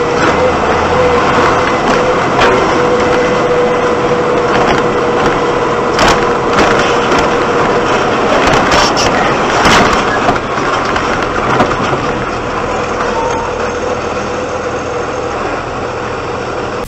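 Engine and road noise of a moving vehicle, recorded from inside the cab by a dash camera: a loud, steady rush with a thin steady whine for most of the time and a few sharp knocks about six and ten seconds in.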